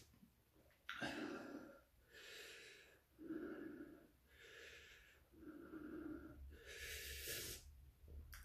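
A man breathing heavily through an open mouth, a series of about six loud breaths roughly a second apart, from the burn of hot chili peppers.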